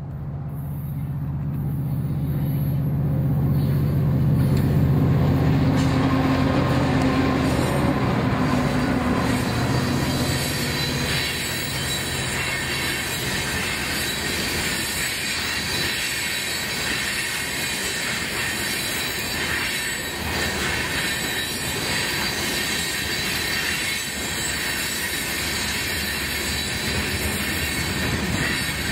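Freight train's diesel locomotives passing with their engines running, loudest about five seconds in. Then a string of aggregate cars rolls by with a steady rumble, the clickety-clack of wheels and a high wheel squeal.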